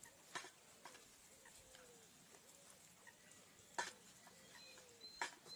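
Very faint animal calls, short and soft, each rising and falling, with a few sharp clicks.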